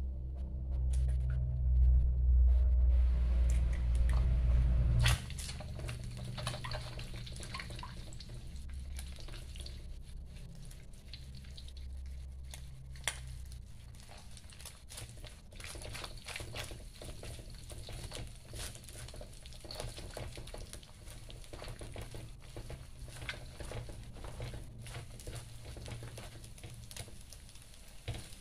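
A low rumble for the first five seconds that cuts off suddenly, then an egg frying in a wok, sizzling faintly while a spatula scrapes and taps against the wok to scramble it.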